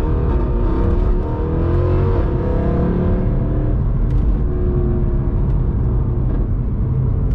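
Mercedes C63 AMG's 6.2-litre naturally aspirated V8 running loud under acceleration, its pitch rising and falling as the revs climb and drop.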